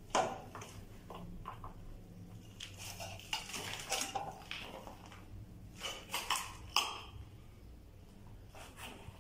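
Footsteps over broken ceramic tile shards and rubble: irregular sharp clinks and knocks, the loudest right at the start and a cluster around six to seven seconds in.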